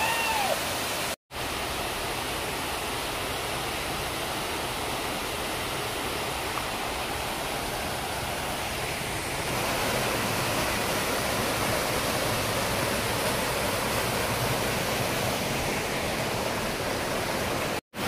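Waterfall cascading over rock ledges: a steady rush of falling water. There are two brief silent gaps, about a second in and near the end, and the rush turns a little louder and deeper from about halfway.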